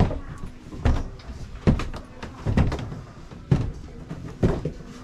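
Footsteps climbing wooden stairs: six heavy thuds, one on each step, a little under a second apart.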